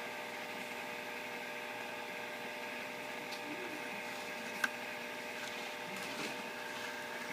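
Steady electrical hum made of several steady tones, with a few faint ticks and one sharp click about four and a half seconds in.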